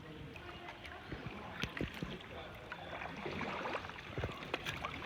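Kayak being paddled: water sounds from the paddle with a few scattered light knocks, and faint voices in the background.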